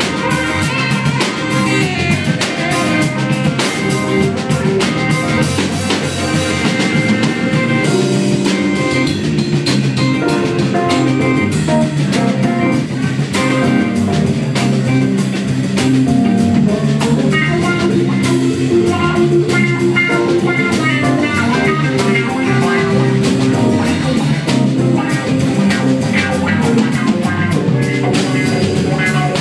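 Live rock band playing an instrumental passage at a sound check: guitar over a drum kit, steady and loud.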